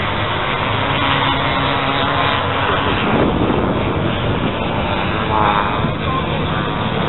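Engines of several vintage enduro motorcycles racing on beach sand, a steady mixed drone. One bike passes close about three seconds in, and its engine note sweeps in pitch.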